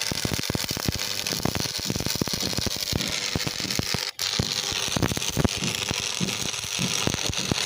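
Electric arc welding on iron: a steady, dense crackle and hiss from the arc, breaking off for an instant about four seconds in before it picks up again.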